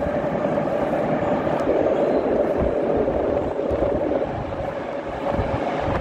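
81-540.2 metro train approaching through the tunnel toward the platform: a steady rumble with a steady hum and low thuds from the track.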